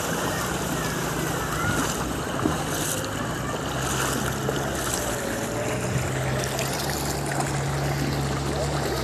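Floodwater swirling and draining down through a perforated manhole cover in a flooded street, a steady rush of water, with a low steady hum underneath.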